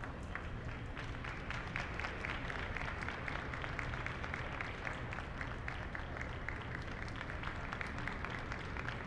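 Crowd applauding steadily, many hands clapping at once.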